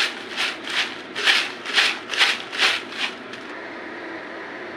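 Crisp fried namkeen mixture of peanuts, poha and sev being shaken in a paper-lined bowl: rhythmic rustling, rattling swishes of paper and snacks, about two a second, that stop about three seconds in.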